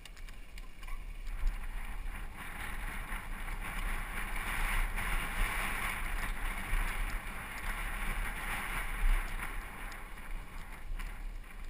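Mountain bike tyres rolling fast over loose dry dirt and gravel, a steady hiss with scattered small knocks, with wind rumbling on the camera microphone.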